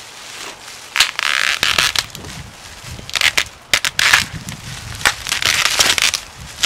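Large sheet of plastic bubble wrap crinkling and rustling as it is pulled off a solar panel, in three loud bursts and a short one at the end.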